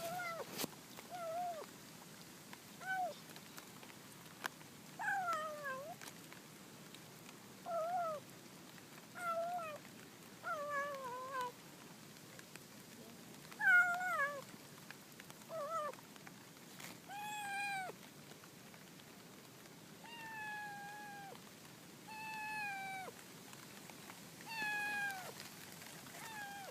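A hungry kitten meowing over and over, a call every second or two. The early meows are short and bend up and down in pitch; from about two-thirds of the way in they are longer and held steadier, and the loudest comes about halfway through.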